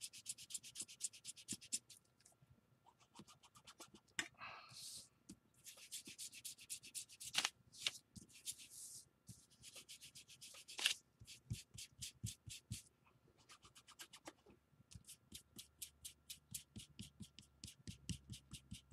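Faint, rapid rubbing strokes of a small round ink applicator worked back and forth over a thin old book page, distressing it with ink. The strokes come in runs, with short pauses about two seconds in and again near fourteen seconds.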